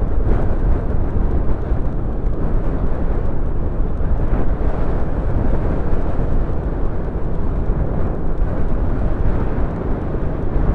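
Motorcycle riding over a rough gravel dirt track: a steady, loud rumble of wind on the microphone mixed with the bike and its tyres on loose stones, with no distinct engine note standing out.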